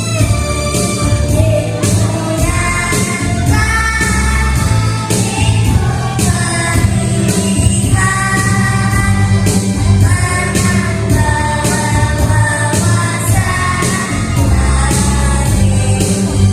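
Kindergarten children's choir singing over musical accompaniment with a steady beat.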